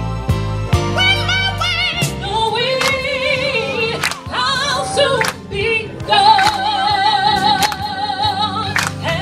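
Gospel singing with accompaniment: a voice carrying long notes with a wide vibrato, one held for about three seconds in the second half, over sharp hits about once a second.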